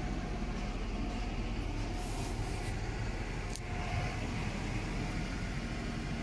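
Diesel truck engine idling steadily, a low even rumble. A short hiss comes about two seconds in, and a single sharp click a little past halfway.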